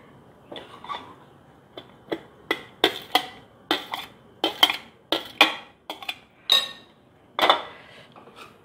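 Metal spoon clinking against a glass mixing bowl and a steel plate while corn salad is stirred and chopped onion is scraped off the plate into the bowl: a dozen or so sharp, irregular clinks.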